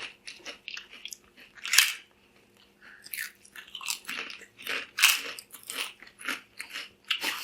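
Kettle-cooked potato chips being bitten and chewed: a string of sharp, irregular crunches, the loudest about two seconds in and about five seconds in.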